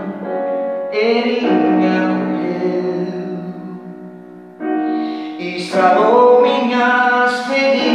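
A man singing a slow gospel ballad over sustained chords on an electronic keyboard. The music fades a little past the middle, then a new, louder phrase comes in.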